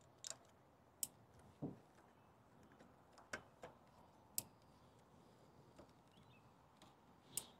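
Several faint, irregularly spaced clicks and light knocks of plastic ignition-coil connectors being snapped on and coils being pressed into place on a Honda Civic engine.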